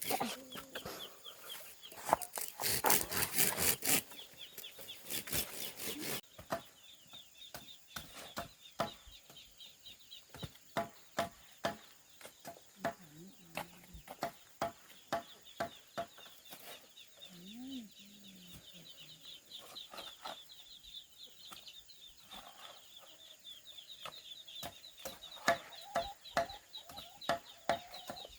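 Farmyard poultry: chickens clucking over a constant high, rapid peeping of young birds, with many sharp clicks and knocks throughout and a loud noisy flurry about two to four seconds in.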